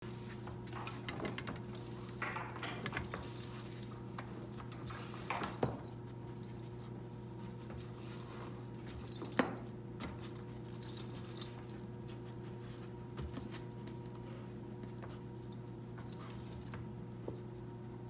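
Dog rummaging in lanyards tied to a treat container: bursts of small metal parts jangling and rustling, with one sharp clink about halfway, then fewer, fainter sounds as it settles to work at the container. A steady low hum runs underneath.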